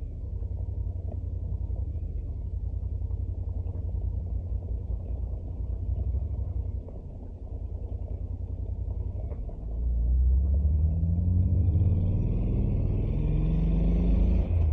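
Honda NC750X parallel-twin engine running steadily under road rumble. About ten seconds in it grows louder and its pitch climbs as the bike accelerates hard.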